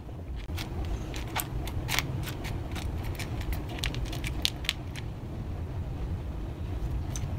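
Small salvaged electronic parts (transistors, capacitors, resistors) clicking and rattling against each other as a hand sifts through a pile of them, in quick irregular clicks that thin out near the end.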